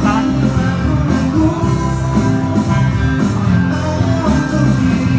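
Live band performance: a singer over acoustic guitar, with drum sounds from an electronic percussion pad struck with sticks.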